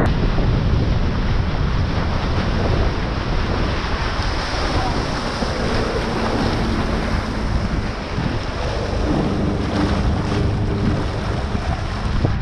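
Small speedboat running fast: wind buffeting the microphone and water rushing and splashing along the hull, with a faint low engine hum underneath in the second half.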